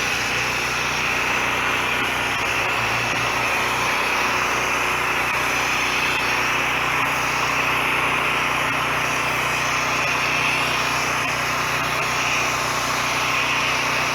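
Pressure washer's engine running steadily, with a constant hiss of spraying water over it.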